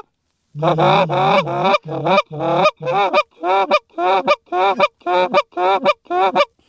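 Canada goose honks from a hand-blown goose call: one long drawn honk, then a steady string of about a dozen short honks, roughly two a second, calling in geese.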